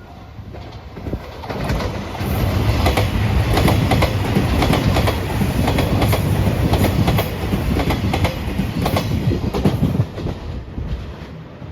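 Train passing over a level crossing, its wheels clacking in a quick rhythm over the rail joints as it swells in, runs loud for about eight seconds and fades near the end. A level-crossing bell rings faintly in the first second.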